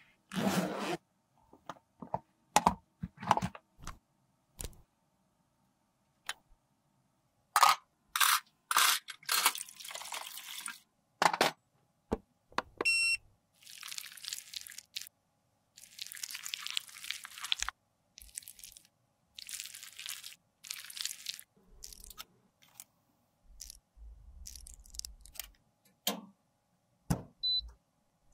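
Close-up handling sounds of makeup cases and palettes: a run of sharp clicks and taps, then repeated stretches of scraping as a metal spatula scrapes out concealer pans. A short electronic beep sounds about halfway through.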